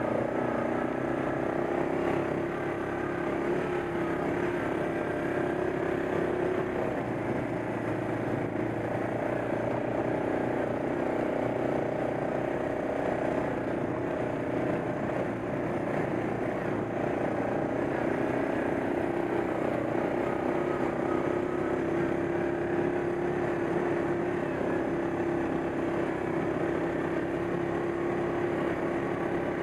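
ATV engine running steadily while riding at trail speed, its note drifting only slightly up and down.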